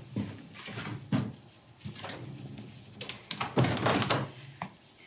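Interior door being opened and closed: a few knocks and clunks, the loudest cluster about three and a half seconds in.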